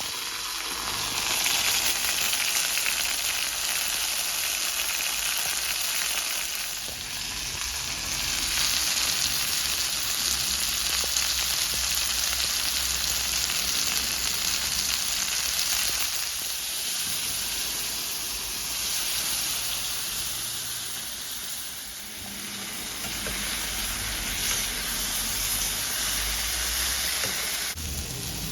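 Chicken jalfrezi sizzling as it fries in a hot pan, a steady hiss that swells and eases a few times.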